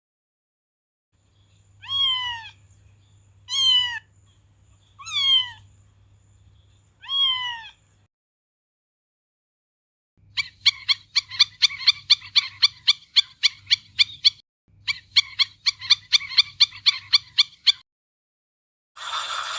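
A domestic cat meows four times, each meow falling in pitch. Then a small bird chirps rapidly, about five chirps a second, in two runs of a few seconds each. A noisy, rasping sound starts just before the end.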